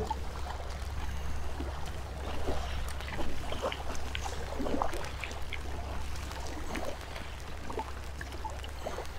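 Kayak paddling on a river: water dripping and splashing off the paddle blades in irregular small splashes, over a steady low rumble.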